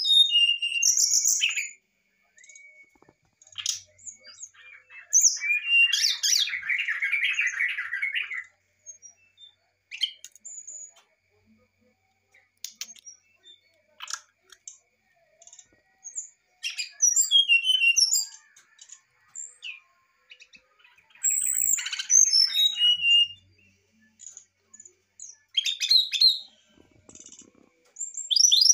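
Brown-chested jungle flycatcher singing a varied, flute-like song: short bursts of whistled notes and glides, separated by brief pauses, with a buzzy chattering phrase about five to eight seconds in.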